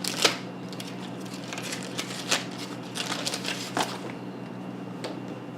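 Paper and cardboard game pieces being handled: scattered crinkles, crackles and light taps, over a steady low electrical hum.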